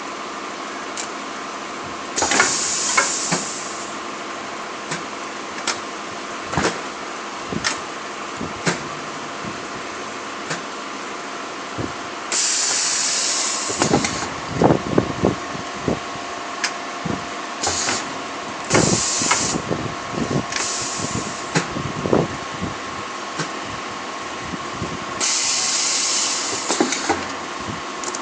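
A turntable double-head high-frequency PVC blister welding machine running with a steady hum and a faint high tone. Irregular clicks and knocks sound throughout, and six loud bursts of hiss, each a second or two long, come at uneven intervals.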